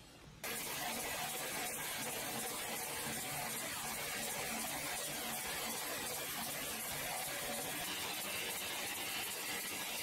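Sawmill machinery running steadily, an even hiss-like noise with no distinct strokes, starting abruptly about half a second in.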